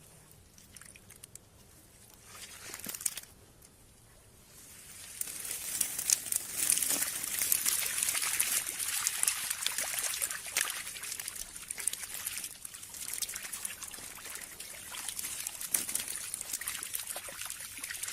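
Water trickling and splashing, as from a fishing net full of fish being handled in the water. It is faint at first, then from about five seconds in becomes a steady hiss of trickles and many small splashes.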